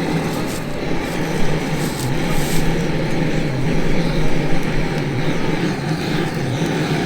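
A steady mechanical drone with a low, slightly wavering hum, like a running motor or engine.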